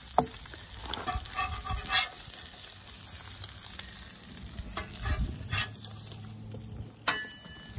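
Eggs sizzling on a Blackstone Adventure Ready 17-inch propane flat-top griddle, with a steel spatula clinking and scraping against the griddle plate a few times.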